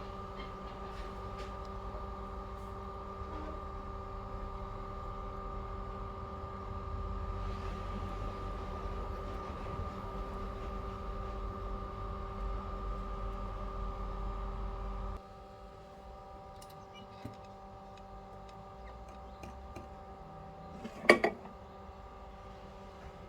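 Steady machine hum with a low rumble that cuts off suddenly about two-thirds of the way through, leaving a fainter hum. One sharp click comes near the end.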